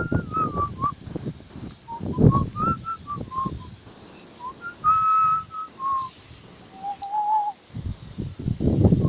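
Whistling: a run of short pitched notes that step up and down, one longer held note about halfway through and a lower wavering note near the end, over scattered knocks and rustling.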